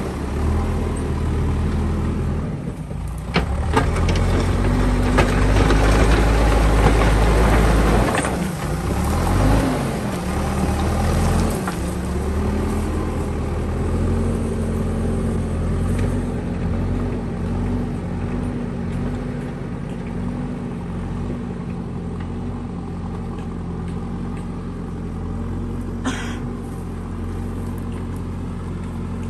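Diesel engine of a JCB 3DX backhoe loader working under load, revving up and down about eight to ten seconds in, then settling to a steadier, lower run. A few sharp knocks come about three seconds in, and a brief hiss near the end.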